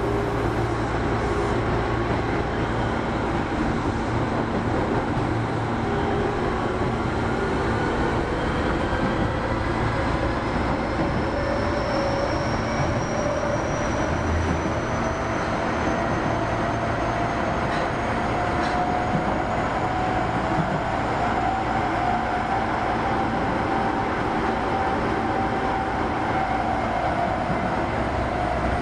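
Osaka Metro 25 series subway train running in a tunnel, heard from inside the car: a steady rumble of wheels on rail with a motor whine that rises slowly in pitch as the train gains speed, easing off slightly near the end.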